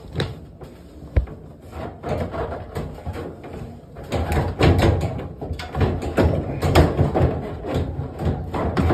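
Knocks, clicks and scraping of plastic and sheet metal as the dryer's front panel is worked onto its hooks by hand. There is a sharp knock about a second in, and the handling gets busier and louder from the middle on.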